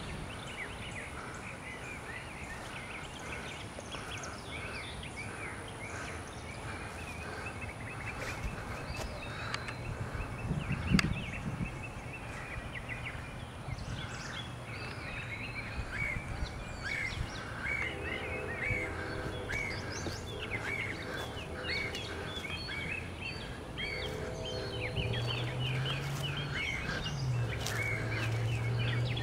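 Birds chirping and singing in quick repeated short notes over a steady background hiss. In the second half a low steady hum with several level tones joins and steps up in pitch near the end, and a single knock sounds about eleven seconds in.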